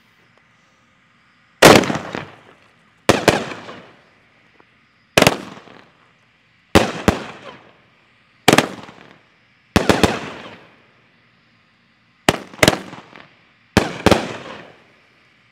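"Three Sheets to the Wind" consumer fireworks cake firing: eight very loud reports, one every one and a half to two seconds, some of them doubled. Each report trails off over about a second.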